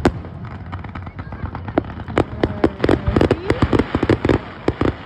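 Fireworks going off: a rapid series of sharp bangs and crackles, thickening into a dense crackling run about two seconds in.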